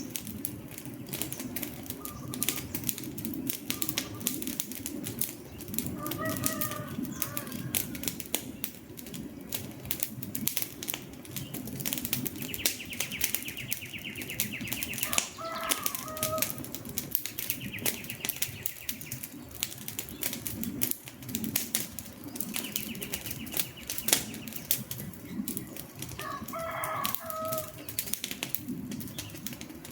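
Campfire burning: dense sharp crackles and pops of burning wood over a low steady rumble of flames. Short bird calls break in three times, about 6, 15 and 27 seconds in. A high buzzy trill comes and goes three times in between.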